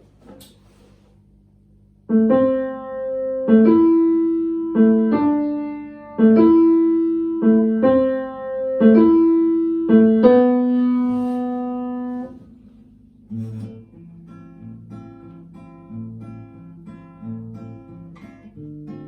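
Instrumental opening of a song: a slow phrase of loud, ringing, decaying notes begins about two seconds in, its last note held, then from about thirteen seconds a softer, quicker accompaniment pattern.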